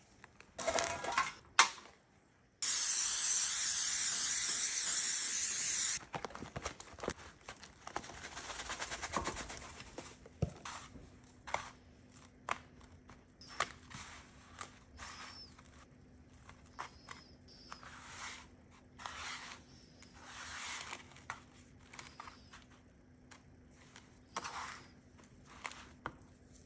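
Papery rustles as the cardboard box is opened, then a loud steady hiss for about three seconds, the dry Shake 'n Bake crumb coating pouring out onto a metal baking sheet. After that, scattered short soft rustles and pats as hands press the crumbs onto raw chicken drumsticks, with a faint steady hum in the background from about ten seconds in.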